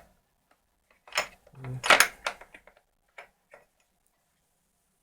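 Metal tools and bits being handled: a quick cluster of clicks and clatter about a second in, then two lighter clicks.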